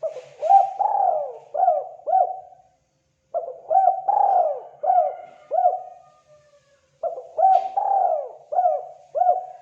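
Spotted dove (terkukur) cooing: three phrases of four or five quick coos each, every coo rising and falling, with short pauses between phrases.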